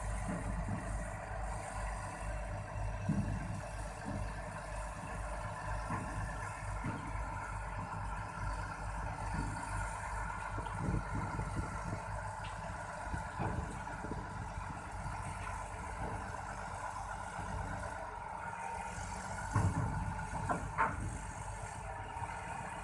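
Crawler bulldozer's diesel engine running with a steady low rumble, with scattered knocks and a short cluster of louder knocks near the end.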